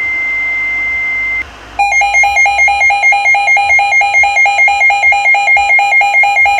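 A steady high electronic tone that stops about a second and a half in, then, after a short gap, a weather radio receiver's alert alarm: a loud electronic two-pitch warble, pulsing about two and a half times a second, signalling an incoming severe thunderstorm warning.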